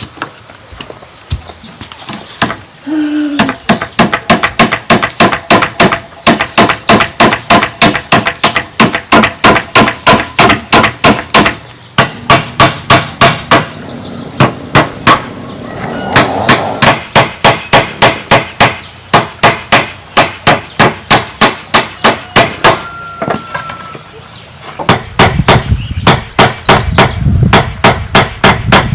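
Hammer blows on bamboo during door building, struck in steady runs of about three a second with brief pauses between runs.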